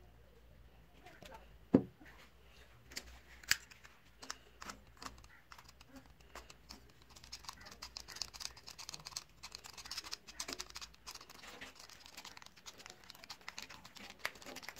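Utility knife blade stirring and scraping sawdust and glue into a filler paste on a hardboard board: a gritty, crunching scratch that gets busier about halfway through. A single sharp knock comes near two seconds in.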